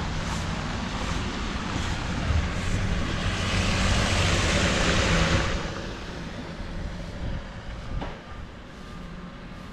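Street traffic on a slushy road: vehicle engines running, with tyre hiss that swells about three seconds in and drops away sharply a little past halfway. A single click comes about eight seconds in.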